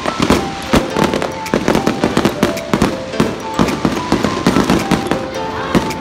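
Fireworks display going off in rapid succession, several bangs and crackles a second, with music playing along.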